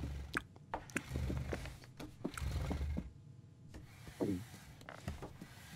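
Cartoon eating sounds: cutlery clicking against a plate and short low contented "mmm" hums from a man savouring his food, then a short vocal sound falling in pitch about four seconds in.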